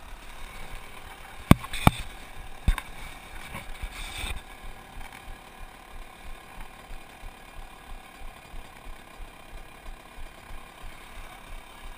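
Sharp knocks and a scraping rub on a helmet-mounted action camera's housing as a gloved hand handles it, three knocks in the first few seconds and a rub near four seconds. Then a faint, even pulsing about twice a second.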